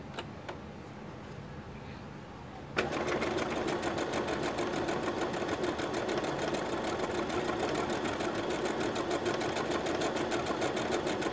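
Brother SQ9130 computerized sewing machine starting up suddenly about three seconds in, then running steadily with a rapid, even stitching rhythm as it sews a programmed sequence of numbers.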